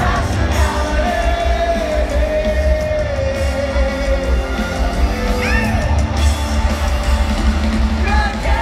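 Live rock band playing loudly in a large hall, with heavy bass and a singer holding long notes; a few yells from the crowd rise over it.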